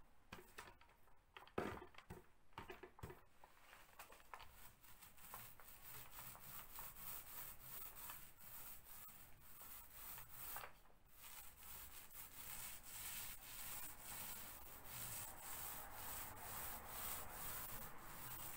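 Mini paint roller rolling paint over a plastered wall: faint, repeated rubbing swishes. A few light knocks from handling the roller come in the first three seconds.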